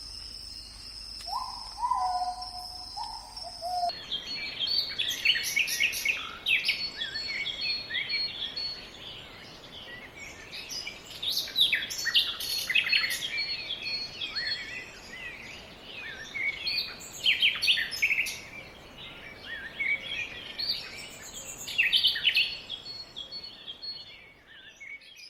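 Steady insect drone with a couple of whistled bird notes, then, from about four seconds in, a dense chorus of many birds chirping and calling.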